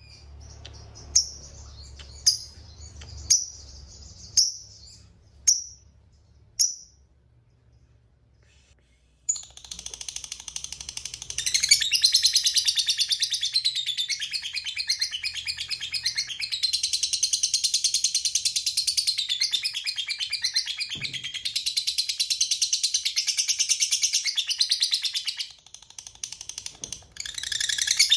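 Lovebird calling. It gives about six sharp, high chirps roughly a second apart, then a long, rapid, high chattering trill (the 'ngekek panjang' long chatter) that runs on for many seconds, breaking off briefly near the end before resuming.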